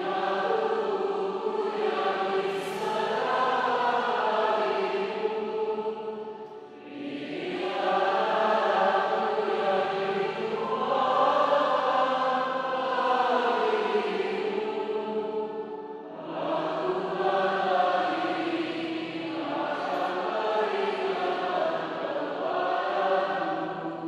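A female psalmist singing a psalm into a microphone in three long phrases, with short breaks for breath between them.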